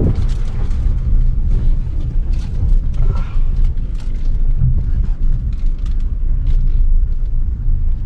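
A car's engine and tyres on a rough, broken road, heard from inside the cabin: a steady low rumble with frequent knocks and rattles as the car jolts over the bumps.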